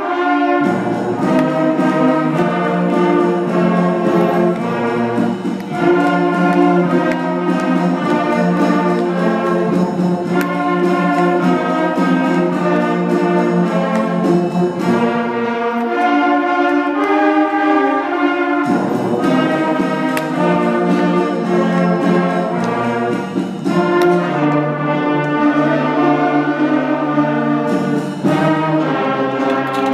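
A student concert band of flutes and brass, tuba included, playing a piece together in held chords. The lowest notes drop out for about three seconds past the middle, then come back in.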